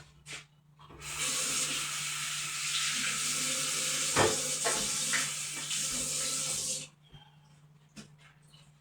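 Water running from a tap into a sink for about six seconds, starting and stopping abruptly, with a couple of light knocks while it runs.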